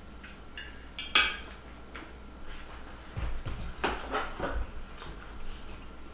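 Cutlery clinking and scraping on a dish during hurried eating. A sharp ringing clink comes about a second in, and a cluster of softer clatters follows around four seconds.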